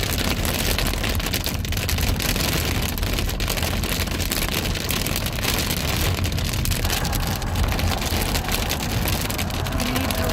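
Heavy rain falling steadily, a dense even hiss with a low rumble underneath.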